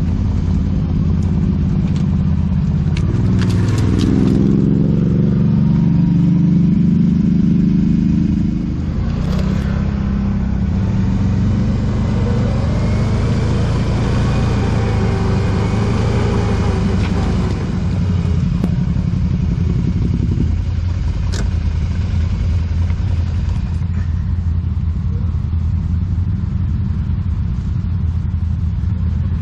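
ATV engine running under way, a steady low drone whose pitch and level rise and fall. There is a stretch of hissing noise in the middle and a few sharp knocks.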